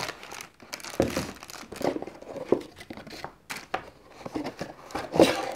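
A small cardboard lens box being opened by hand, its flaps and packaging rustling and crinkling in short, irregular handling noises.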